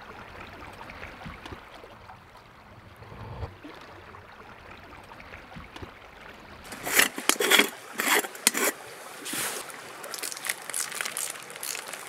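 A faint steady background hiss, then from about seven seconds in a run of sharp crinkles and clicks: a packet of coffee being opened and poured into an aluminium moka pot, with the pot being handled.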